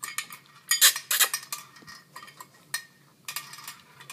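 A Cairn terrier puppy eating from her food bowl: irregular clinks and clatters of food and bowl as she noses and chews, busiest about a second in.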